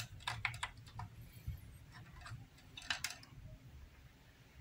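Light plastic clicks and handling sounds as a USB flash drive is plugged into the front USB port of a DVD player casing: a quick run of clicks in the first second and another few about three seconds in.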